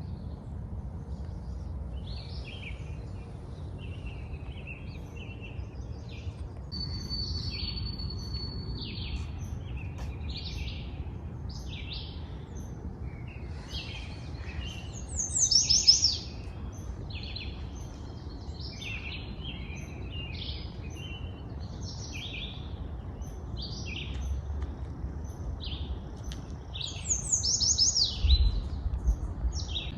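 Several songbirds chirping and calling in short phrases, with a louder quick run of notes about halfway through and again near the end, over a low steady rumble.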